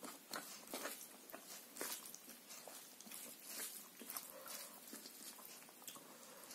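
Faint, irregular wet clicks and squishes of eating by hand: fingers mashing and mixing rice with chicken curry on a steel plate.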